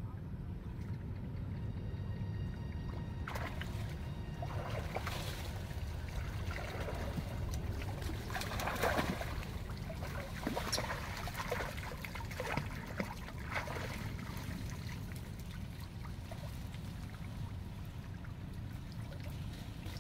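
Monkeys swimming and splashing in shallow river water: a run of quick splashes and slaps starting about three seconds in, loudest near the middle, thinning out after about fourteen seconds.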